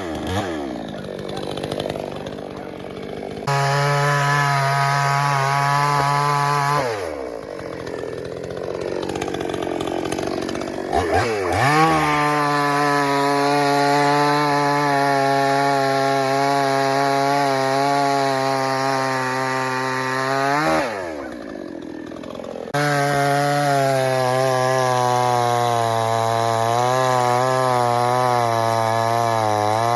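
Pinkway 63cc two-stroke gas chainsaw running at high revs, dropping toward idle and opening up again several times, with the engine note wavering as it works through a log near the end.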